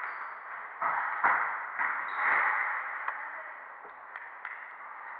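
Squash ball strikes off racket and walls, with a squeak of court shoes, echoing around the enclosed squash court. Three or four sharp hits come in the first few seconds, then only light ticks as the rally ends.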